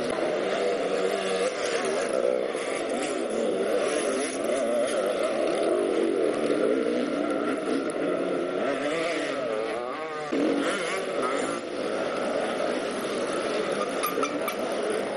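Several enduro motorcycle engines revving up and down as riders climb a steep, muddy hill, with the pitch rising and falling constantly. The sound changes abruptly about ten seconds in.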